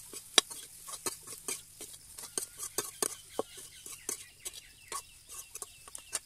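A metal spatula scraping and clinking against a steel kadai as chopped onions are stirred and fried, in quick repeated strokes about three a second. From about three seconds in, a chicken clucks in the background.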